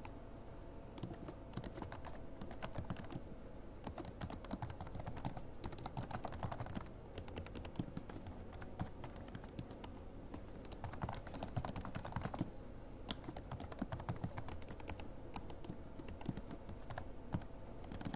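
Computer keyboard typing: runs of quick key clicks broken by a few short pauses.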